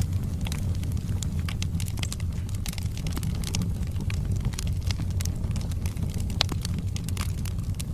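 Wood fire burning in a fireplace: logs crackling with frequent small pops over a steady low rumble of the flames, and one sharper pop about six seconds in.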